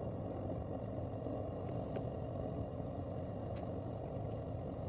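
Steady low rumbling noise with no hammer blows, broken only by two faint ticks about two seconds and three and a half seconds in.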